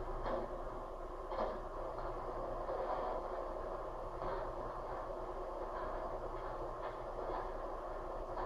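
MTH R142A model subway train's sound system playing steady, fairly quiet subway-car running noise, with faint soft clicks about once a second and a low electrical hum underneath.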